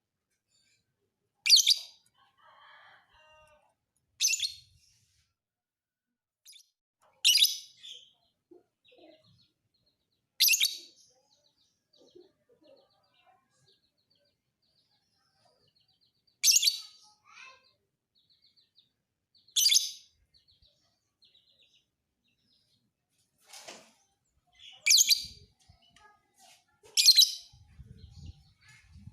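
Lovebird calling in short, shrill, loud bursts, eight of them spaced two to six seconds apart, with faint twittering in between.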